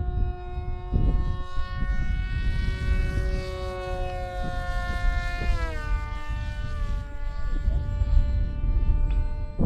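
Electric motor and propeller of a foam-board RC plane whining in flight at a steady pitch, dropping lower about halfway through as the throttle is eased back. Wind rumbles on the microphone underneath.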